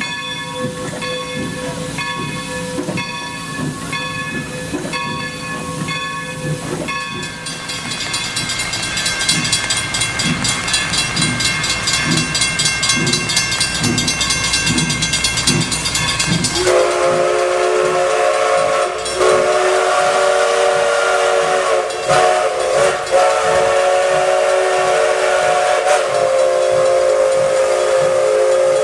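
Baldwin 2-8-0 steam locomotive No. 40 working, its exhaust beats and steam hiss heard steadily. From about 7 s in, a grade-crossing bell rings rapidly as the engine chuffs toward the crossing. About 17 s in, its steam whistle blows one long chord of several notes, with two short breaks, almost to the end.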